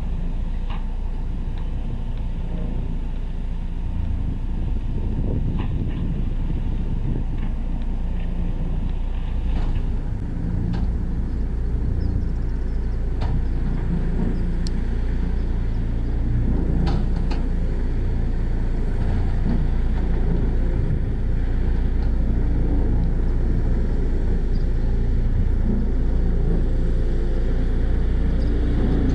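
Heavy diesel construction machinery running steadily with a low drone, with a few faint clanks scattered through it.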